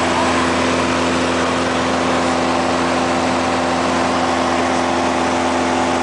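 Small private plane's engine and propeller in flight, heard from inside the cabin as a loud, steady drone with an even hum over rushing air.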